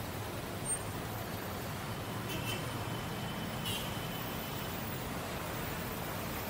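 Steady city road traffic: the running of cars, buses and trucks, with a couple of brief high squeaks near the middle.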